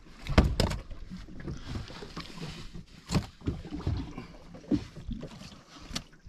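Small open wooden boat drifting at sea, with wind and water noise and a few sharp knocks, the loudest two close together about half a second in and another about three seconds in.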